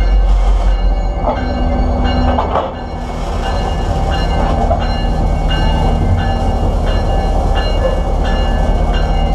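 Steel wheels of a freight car rolling slowly on the rail, heard from right beside the wheel: a steady low rumble with sustained squealing tones and occasional clicks.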